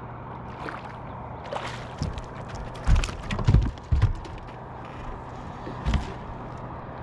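A series of heavy knocks and thumps about two to four seconds in, and one more near six seconds, with a few lighter clicks, over a steady low hum.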